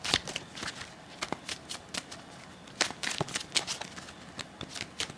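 Deck of tarot cards being shuffled by hand: irregular sharp flicks and soft clicks of card edges striking one another.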